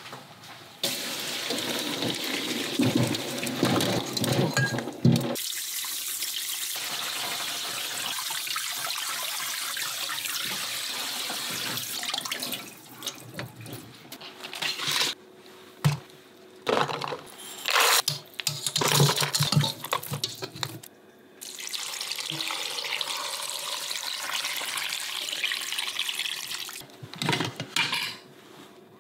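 Kitchen tap running into a stainless steel sink as oxtail pieces are rinsed in a metal colander. The steady run of water is broken in the middle by irregular knocks and clatter of the bones against the colander and sink.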